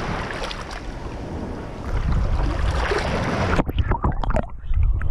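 Shallow surf water washing and splashing around the microphone at the water's surface. About three and a half seconds in, the sound turns suddenly muffled as the microphone goes underwater, leaving a low underwater rumble with gurgling and bubble pops.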